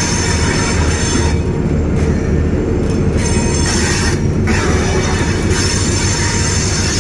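Train running along the track, heard from on board: a steady low rumble with high-pitched squeal tones over it that fade out for a couple of seconds partway through and then come back.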